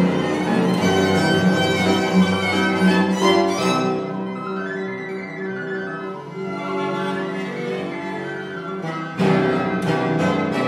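Period-instrument piano trio playing: violin and cello with gut strings, and a fortepiano. The music drops to a quieter passage about four seconds in and comes back loudly near the end.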